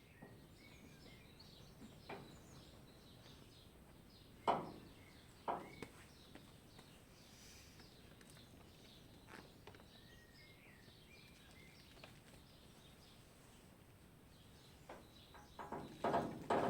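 Faint birdsong with scattered chirps, broken by a few sharp knocks; the two loudest come about four and a half and five and a half seconds in, and a quick run of knocks follows near the end.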